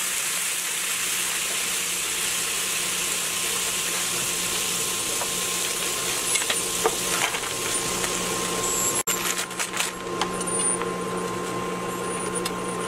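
Water sizzling and bubbling hard in a hot, oiled nonstick skillet just after being poured in. After about eight seconds the hiss eases into scattered pops and crackles.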